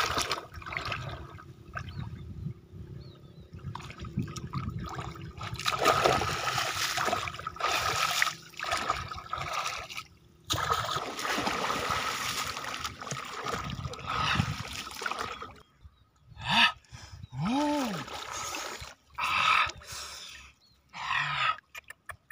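Shallow muddy water splashing and sloshing in uneven surges as a person wades through a flooded rice field, churning the water with legs and hands and tugging up plants. About three-quarters of the way through there is one short rising-then-falling call.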